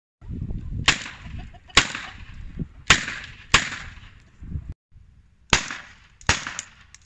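Zoraki blank-firing pistols firing 9mm P.A.K. blank cartridges as contact shots pressed against a padded target: four sharp bangs about a second apart, then after a brief break a few more.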